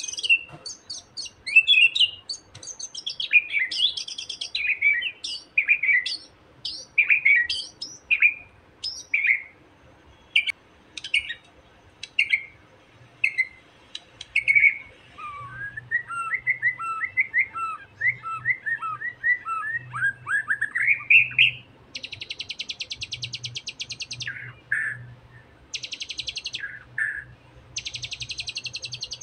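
A young wild white-rumped shama (murai batu) sings its taunting song: loud, varied whistled phrases, then about fifteen seconds in a quick run of rising chirps, then several harsh buzzing rattles mixed with short whistles near the end.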